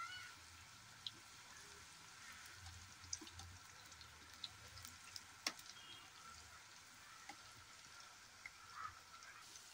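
Namak pare dough strips deep-frying in hot oil in a steel kadai: a faint, steady sizzle with scattered small crackles, and one sharp tick about five and a half seconds in.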